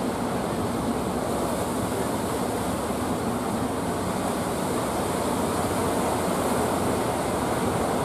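Steady roar of heavy surf breaking and washing ashore, with wind.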